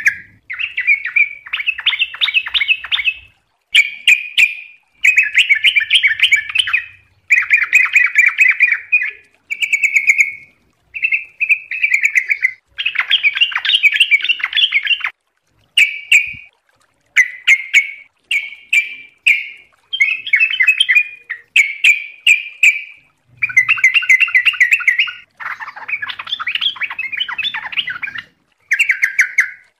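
Yellow-vented bulbul (trucuk) singing profusely. Loud bubbling, chattering phrases of a second or two follow one another with only short pauses.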